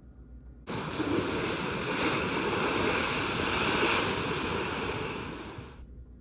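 Ocean surf breaking and washing against the foot of sandstone sea cliffs: a dense rushing that starts abruptly under a second in, swells, then fades and cuts off shortly before the end.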